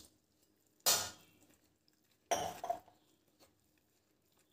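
A hand swishing grated raw potato through rinse water in a steel bowl: two short splashes, about a second in and again at about two and a half seconds.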